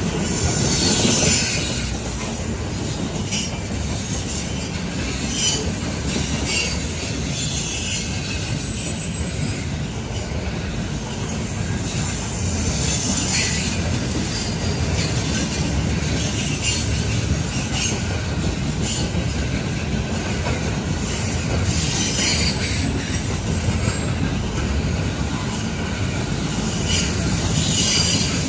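Covered grain hopper cars of a long freight train rolling past: a steady rumble of steel wheels on rail, with short high-pitched wheel squeals every few seconds as the cars take the curve.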